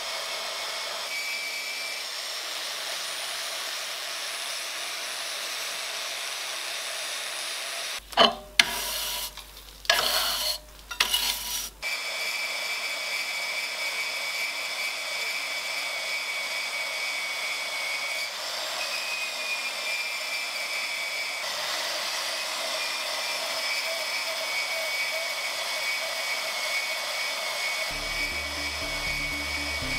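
Small benchtop bandsaw with a 10 TPI blade running and cutting through a metal block, a steady whine over a high hiss. About eight seconds in, a few seconds of loud, irregular knocks break in.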